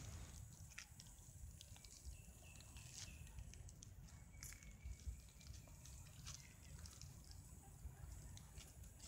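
Near silence: faint outdoor ambience with a low rumble, scattered faint ticks and a thin faint whistle-like tone about two to four seconds in.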